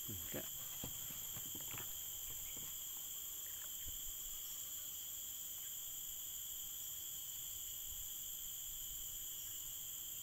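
Steady chorus of insects in the forest, a continuous high buzz at several pitches that holds unchanged throughout.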